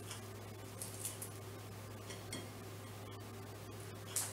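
Faint, scattered crisp rustling and crackling of lettuce leaves being torn by hand and dropped onto a plate, over a steady low hum.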